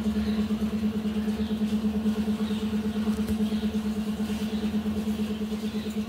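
Steady low hum from a running motor, one even pitch with a fast, slight pulsing.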